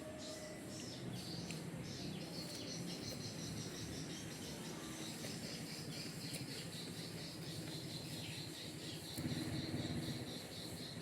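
Insect chirping in a fast, pulsing trill that sets in about two seconds in, over a low steady rumble.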